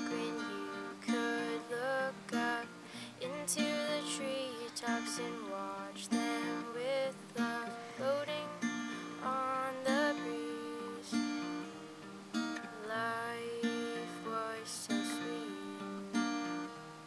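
Acoustic guitar strummed in a steady rhythm, with a melody line sliding between notes above the chords.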